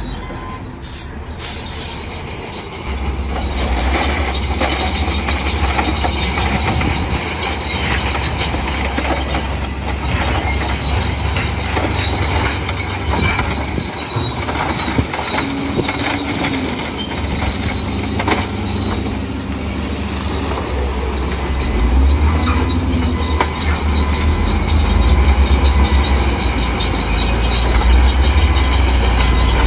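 Heavy earthmoving machinery working, a dump truck and a wheel loader, with diesel engines running under load. High thin whining tones sit over a deep engine rumble, and the sound grows louder in the last several seconds.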